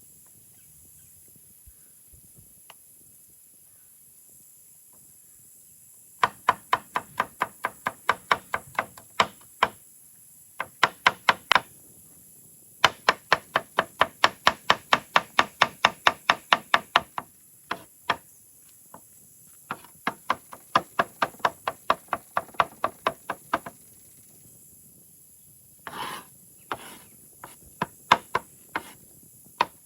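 Knife chopping rapidly on a cutting board, in quick runs of about five or six strokes a second with short pauses between them. It begins about six seconds in.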